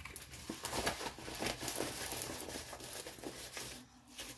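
Crinkling and rustling of plastic packaging and a rolled diamond-painting canvas being handled, in irregular bursts.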